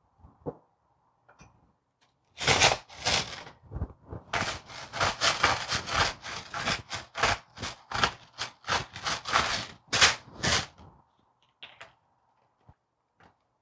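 Hand-twisted salt grinder crunching pink salt crystals in quick, even strokes of about three a second. It starts about two and a half seconds in and stops near eleven seconds.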